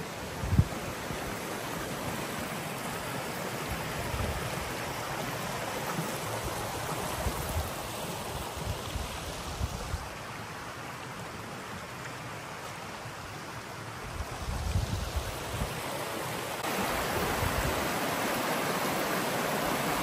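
Shallow rocky stream, the Trevillet River, rushing steadily over stones, louder for the last few seconds. A few low thumps, the strongest about half a second in.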